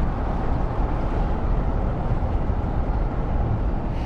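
Steady engine rumble, even and unbroken, with no changes in speed.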